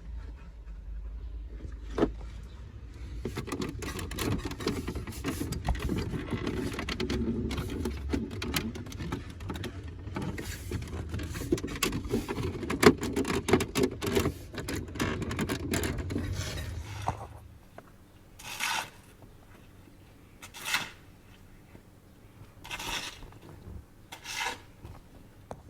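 Hands working on plastic interior trim: a long stretch of rubbing and scraping with many small clicks, which stops about two-thirds of the way through. Four short swishes follow, about two seconds apart.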